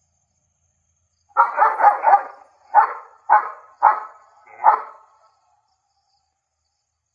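German shepherd barking: a quick run of about four barks, then four more single barks spaced about half a second apart, then it stops.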